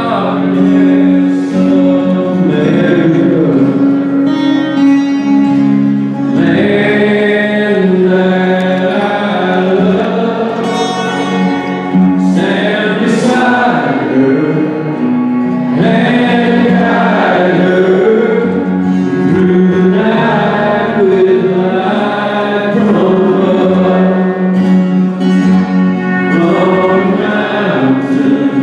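Live song: a man singing into a microphone over a strummed acoustic guitar.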